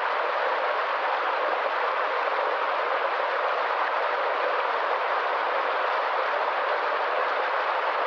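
Small waterfall cascading over rocks in a stream: a steady, even rush of water.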